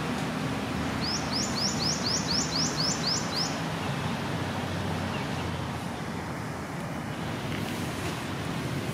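A small bird gives a quick run of about nine rising high chirps, a bit over three a second, starting about a second in and stopping after about two and a half seconds, over a steady background hum and hiss.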